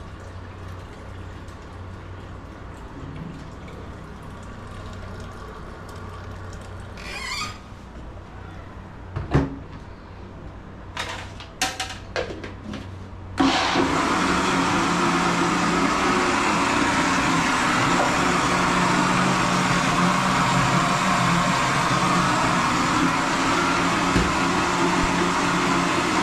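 A few light clicks and knocks, then about halfway through an electric blender switches on and runs steadily, loud and even, blending chopped fresh coconut with water into coconut milk.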